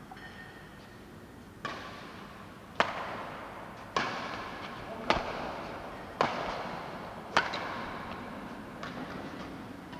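Badminton rally: rackets striking the shuttlecock six times, about once a second, each sharp hit ringing on in the echo of the hall.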